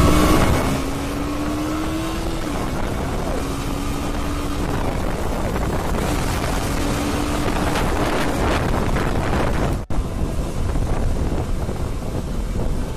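Motorcycle on the move in road traffic: the engine runs with a low hum that rises slightly in pitch at times, under wind rushing across the microphone. The sound breaks off for an instant about ten seconds in.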